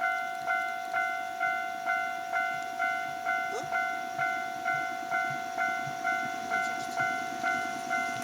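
Japanese railway level-crossing alarm ringing its electronic 'kan-kan' bell, a ringing ding about twice a second that dies away between strokes. The crossing has a fault.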